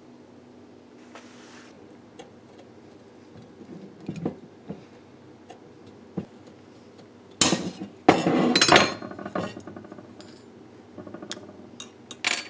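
Large hand snips cutting a small piece of bronze sheet, with light metallic clicks of handling. About seven and a half seconds in comes a loud crunching cut of a second or so, and there is another short cut near the end.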